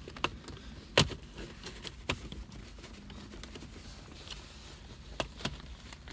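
Sharp plastic clicks and knocks from prying out the shift boot's retaining clip in a BMW E36 centre console, the loudest about a second in and two quick ones near the end.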